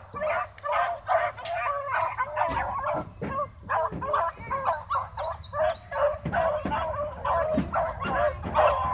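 A pack of beagles baying and yelping on a chase, many voices overlapping without a break.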